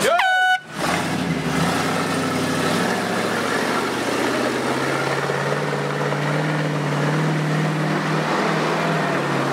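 A brief high-pitched starting call, then a modified Chevrolet 4x4 pickup's engine working hard under load as it tows a 36,000-pound cement mixer up a dirt hill. The engine note climbs slowly and drops again near the end.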